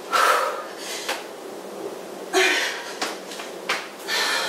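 A woman breathing hard with sharp exhalations during burpees, about three heavy breaths, with a few sharp thumps and slaps of hands and feet landing on an exercise mat.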